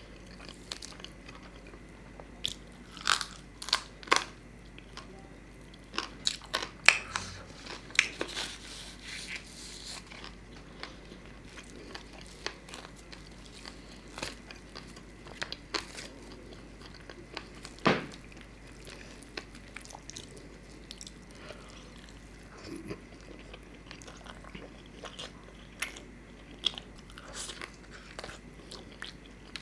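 Close-up eating sounds: a man biting and chewing tandoori chicken and paratha, with sharp wet mouth clicks at irregular intervals, loudest about three, seven and eighteen seconds in.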